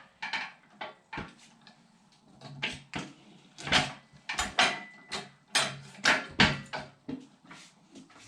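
Irregular clunks and thumps of a No-Mar tire changer's bead breaker being pushed down on a motorcycle tire, pressing the bead off a carbon fiber BST front wheel's rim. About a dozen separate knocks, bunched in the middle of the stretch.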